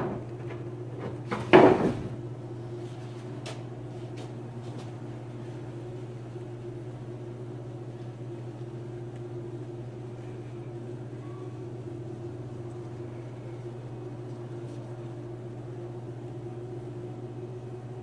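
A couple of sharp knocks about a second and a half in, then a steady low hum.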